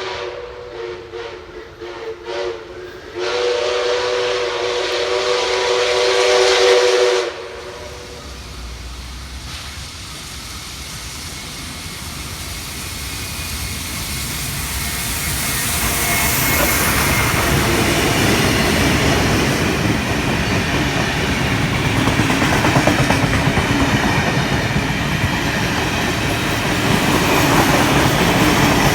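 Train whistle giving a few short toots, then one long blast that cuts off about seven seconds in. The train then approaches and runs past, its wheels and carriages growing louder and staying loud to the end.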